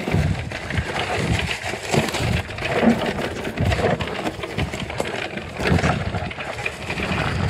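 Santa Cruz Heckler electric mountain bike descending a rough dirt singletrack: a continuous rumble of tyres over dirt and stones, with frequent quick knocks and clatters as the bike bounces over bumps.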